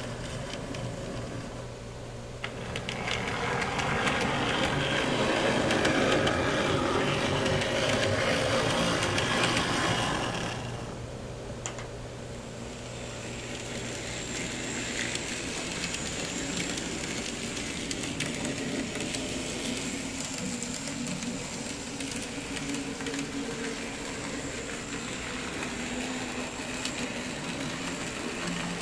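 Small electric motors and wheels of N scale model trams running on the layout's track, a steady mechanical whirr and rattle. It grows louder a few seconds in, stays loud for about eight seconds as a tram runs closer, then drops back to a quieter steady run.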